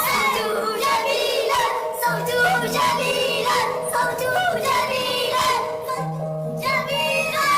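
A children's song sung in sped-up, high-pitched 'chipmunk' voices over backing music.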